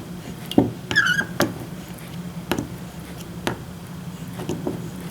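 A few sharp clicks and knocks, roughly one a second, as small metal parts are handled and set down on a workbench, with a brief squeak about a second in.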